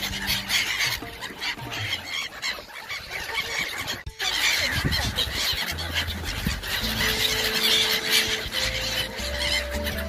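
Background music with long held low notes and a slowly stepping melody, over a chatter of many water birds calling. The sound breaks off for an instant about four seconds in.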